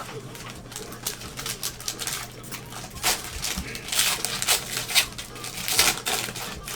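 Trading-card packs and cards being handled: an irregular run of light clicks and ticks with several short papery rustles and crinkles, heaviest in the middle and near the end.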